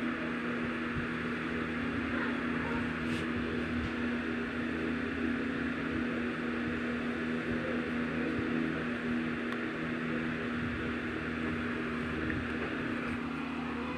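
A small electric motor humming steadily, one constant tone with an even hiss over it.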